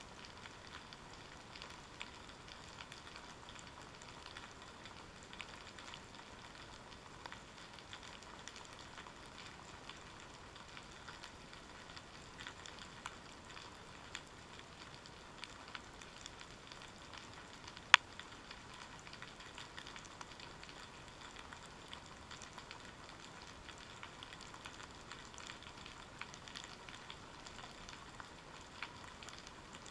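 Underwater crackling and fizzing on a rocky kelp seabed: a steady faint patter of many tiny clicks, heard through a GoPro's waterproof housing. One sharp, much louder click about eighteen seconds in.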